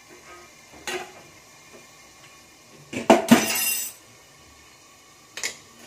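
Stainless-steel pot and lid clinking and clattering on a gas stove as the pot is lifted off the burner. A light clink comes about a second in, then a loud metal clatter lasting about a second midway, and a short knock near the end.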